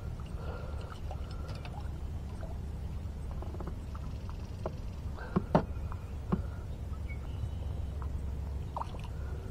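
Handling noise from a kayak and rod while a hooked largemouth bass is brought alongside: a steady low rumble with scattered light clicks and knocks, the sharpest about five and a half seconds in.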